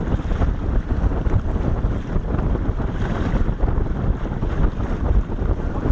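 Wind buffeting the microphone aboard a fishing boat on open water, a steady rough rumble with the wash of the lake beneath it.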